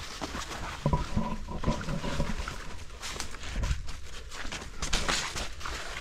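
Footsteps crunching and brushing through dry leaf litter and leafy undergrowth, with rustling that peaks about five seconds in. About a second in, a low pitched call lasts about a second and a half and is the loudest thing here.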